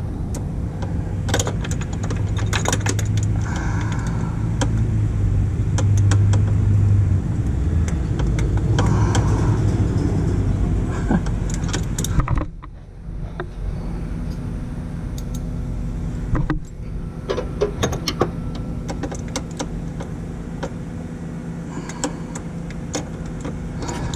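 Metal socket and wrench clicking, scraping and rattling against the engine-bay parts as a socket is worked onto a hard-to-reach AC compressor mounting bolt. The socket will not seat because it is a 12 mm socket on a 13 mm bolt. Irregular light clinks and knocks come over a steady low hum.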